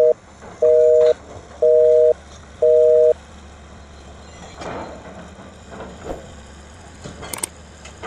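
A two-tone beep repeating evenly, half a second on and half a second off, in the cadence of a telephone busy signal; it stops about three seconds in. A low steady hum of heavy machinery follows, with a few short metallic clanks near the end.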